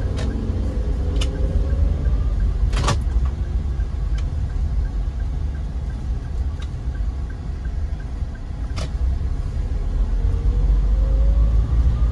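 In-cabin sound of a 2018 Toyota Avanza 1.3 G manual driving slowly: a steady low rumble of the 1.3-litre four-cylinder engine and tyres, the engine note rising near the end. A few sharp knocks or clicks come through now and then.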